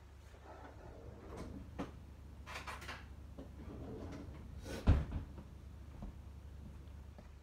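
Kitchen handling clatter: a few light clicks, a short rattle, then one sharp knock about five seconds in, the loudest sound, over a steady low hum.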